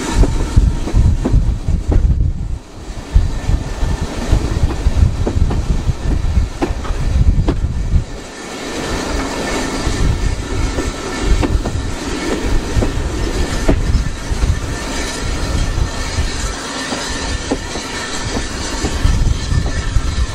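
A railway carriage in motion, heard from its open window: a steady running rumble, with the wheels clicking over rail joints now and then.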